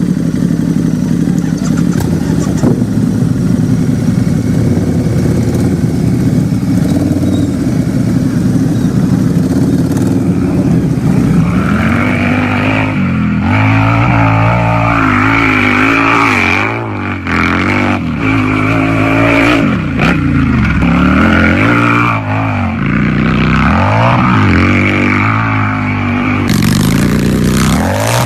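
Motorcycle engine idling steadily, then revved up and down over and over from a little before halfway, the pitch rising and falling with each blip of the throttle.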